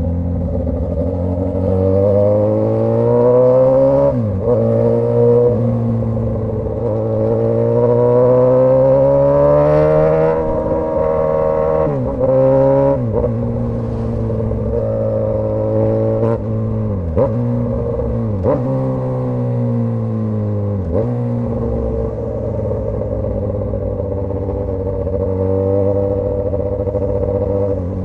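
Straight-piped Suzuki GSX-S1000 inline-four motorcycle engine, loud, pulling up through the revs and dropping sharply in pitch at a string of gear changes or throttle closings, about a dozen times.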